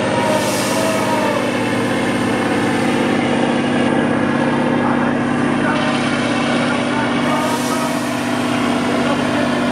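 Heavy diesel engine of an eight-wheel off-road trial truck running steadily under load as it crawls up a steep dirt slope, with two short hisses, one about half a second in and one near the end.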